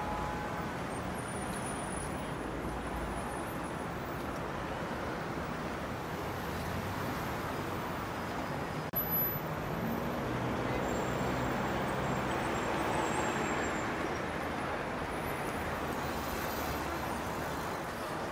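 Steady road and engine noise of a moving car heard from inside the cabin. A single sharp click comes about nine seconds in, and a low engine note stands out for a few seconds after it.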